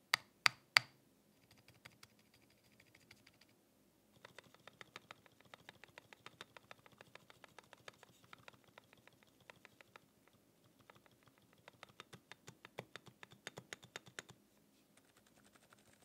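Keys on a Mode 80 mechanical keyboard with lubed Outemu Silent Sky tactile switches pressed one after another, giving a rapid run of soft, muted clicks. Three louder, sharper clicks come right at the start.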